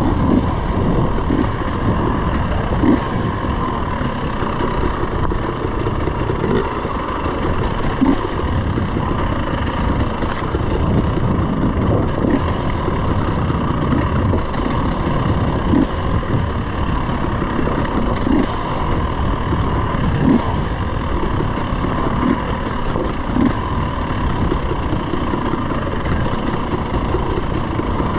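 300cc two-stroke dirt bike running along a forest trail, its engine and riding noise steady throughout, with a few short knocks scattered through.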